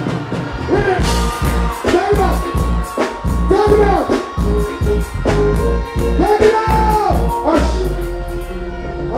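Live reggae/dancehall band music played through a concert sound system: a heavy, pulsing bass line with a singer's voice carrying a melody in long arching phrases over it.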